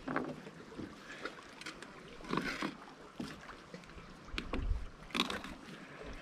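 Fillet knife slicing and scraping through sockeye salmon on a wooden cutting board: a few short scrapes and knocks, the loudest near the middle and about five seconds in.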